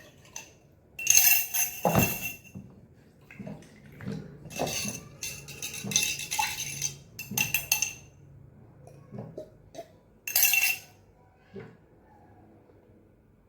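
A spoon stirring and clinking against a glass in about five bursts of half a second to a second each, the glass ringing at the same bright tones each time, with a dull knock about two seconds in.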